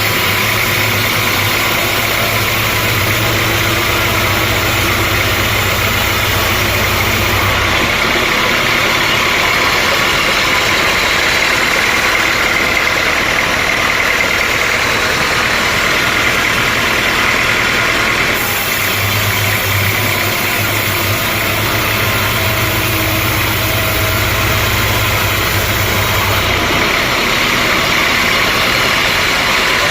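Sawmill machinery running steadily, with a deeper low hum that comes in for two stretches of about eight seconds each.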